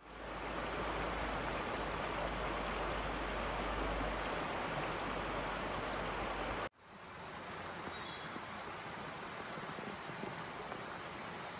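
Steady rushing of a shallow, rocky mountain stream. About two-thirds of the way through the sound cuts out for an instant and comes back slightly quieter, with less low rumble.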